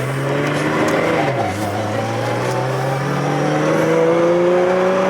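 Car engine accelerating hard through the gears. Its pitch climbs, drops at an upshift about a second and a half in, then climbs steadily again.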